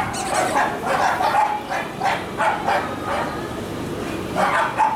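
A dog barking repeatedly in short, quick barks, several a second at first, easing off about three seconds in and starting up again near the end.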